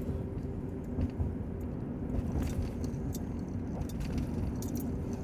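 Steady low rumble of a car in motion heard from inside the cabin, with a few faint clicks and rattles.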